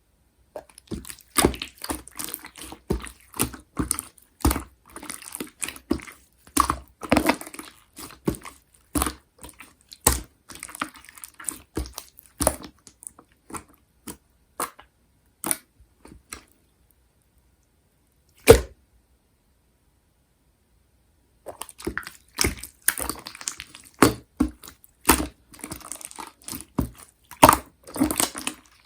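Clear slime being pressed and stretched by hand, giving rapid runs of sticky crackles, clicks and pops. The crackling stops for several seconds past the middle, apart from one sharp loud pop, then starts again.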